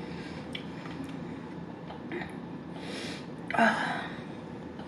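Faint handling sounds as fingers pick through marinated antipasto in a plastic bowl, over quiet room noise; a breath about three seconds in and a short gasp just after.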